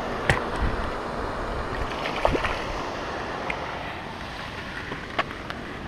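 Wind buffeting the microphone over water, with a few short clicks: one near the start, one about two seconds in and one about five seconds in.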